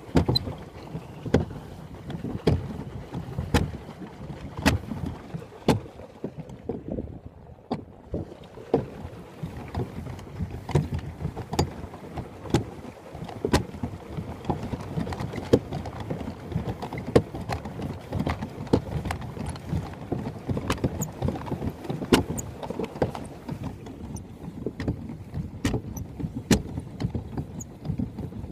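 Plastic pedal boat being pedalled along: water churning under the hull, with frequent sharp knocks and clunks, about one or two a second.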